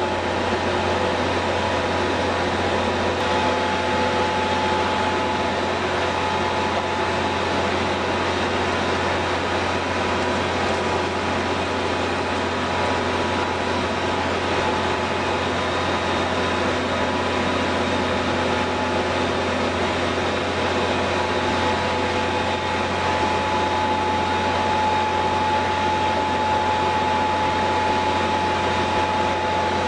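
Rendering plant machinery running steadily: a constant mechanical hum with several steady whining tones on top.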